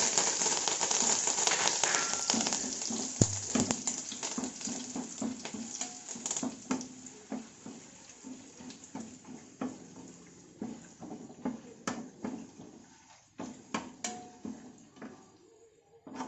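Curry leaves spluttering and sizzling in hot coconut oil, loud at first with many sharp crackles, then slowly dying down to scattered pops as the leaves' moisture cooks off.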